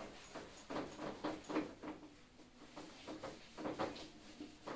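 Whiteboard eraser wiping across a whiteboard in quick repeated strokes, about two or three a second, with a short lull in the middle.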